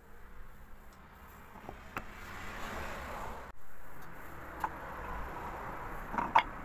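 Wooden parts of a small handmade bookbinding press being handled on a wooden workbench: faint rubbing and scraping of wood on wood with a few light knocks, the sharpest a quick double knock near the end.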